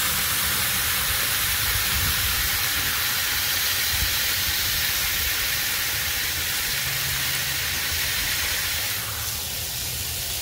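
Raw beef patty sizzling steadily as it is smashed under a burger press on a hot Blackstone 22-inch griddle; the hiss eases about nine seconds in as the press is lifted.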